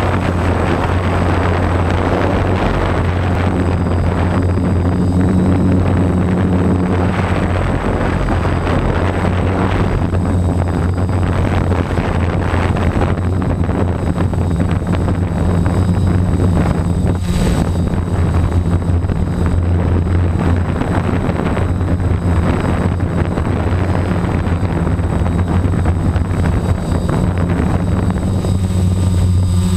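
DJI F550 hexacopter's six electric motors and propellers running in flight, heard from a camera on board: a steady low hum under a rushing noise that swells and fades.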